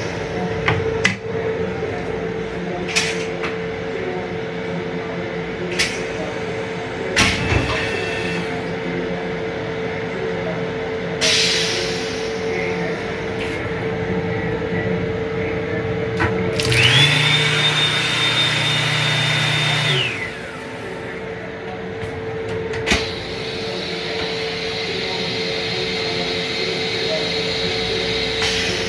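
Built-in hand dryer in an M7 railcar restroom, running for about three and a half seconds with a rush of air, a high motor whine and a low hum, starting about 17 seconds in. Around it are a steady hum, scattered clicks and knocks, and a short rush of noise about 11 seconds in.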